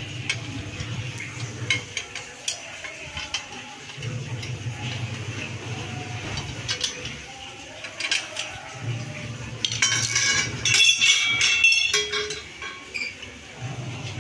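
Steel satellite-dish mount brackets and bolts clinking and rattling as they are handled and a bolt is worked through them with a long metal tool, with scattered clicks and a louder stretch of rattling about ten seconds in. A low hum comes and goes underneath.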